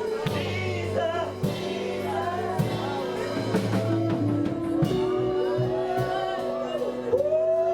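Gospel worship music: voices singing long, sliding lines over sustained instrumental chords and bass notes.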